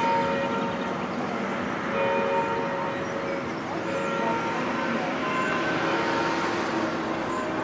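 Several church bells ringing together in a peal, overlapping tones struck afresh every second or two. Beneath them runs a dense crackling, a Eurasian beaver gnawing rapidly at a branch.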